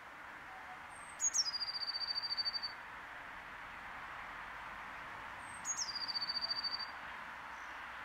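Blue tit singing: two song phrases, each one or two high notes dropping into a fast, even trill. The first comes about a second in, the second a little past the middle.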